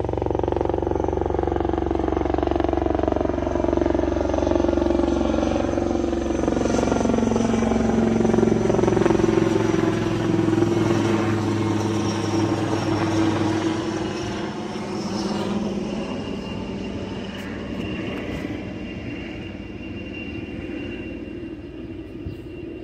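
Helicopter passing overhead, its engine and rotor sound falling in pitch as it goes by, then slowly fading over the last third.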